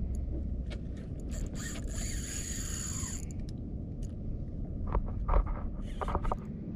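A fishing reel's ratchet buzzing for about a second and a half, followed by a few sharp clicks and knocks.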